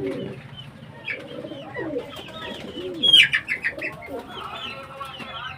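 Pigeons cooing in low, curving calls, mixed with quick high-pitched chirps. The chirps come loudest in a fast run about three seconds in.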